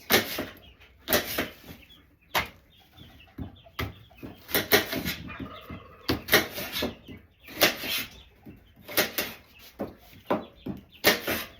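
Knife chopping fruit and vegetables on a cutting board in short, sharp strikes, roughly one a second, while chickens cluck between the chops.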